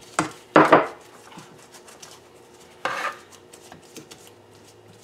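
Kitchen clatter: a small ceramic ramekin and a pastry brush knocking against a metal baking pan and set down on a stone countertop, a loud pair of knocks within the first second and another about three seconds in, with light tapping between.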